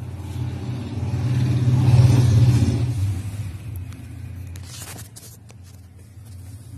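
A steady low rumble that swells loudest about two seconds in and then eases off, with a brief scraping rustle of the pleated cabin air filter being handled about five seconds in.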